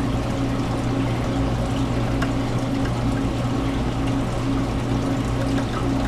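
Reef aquarium's water circulation: a steady low pump hum under pouring, trickling water.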